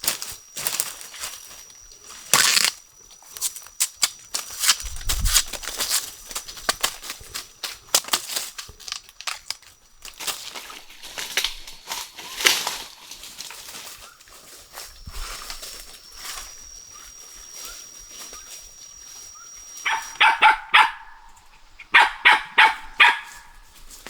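Rustling and clicking of handling and movement through forest litter, with a thin steady high whine behind it for much of the time. Near the end come two quick runs of four or five short yaps, dog barks from a small dog.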